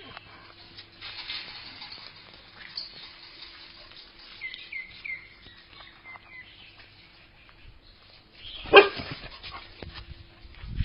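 A dog barks once, loudly, about nine seconds in. Earlier comes a run of short, high, falling chirps.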